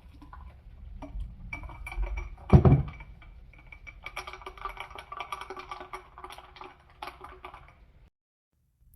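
Background music with pitched notes over a clicky percussive beat, cutting off suddenly near the end. A loud thump about two and a half seconds in.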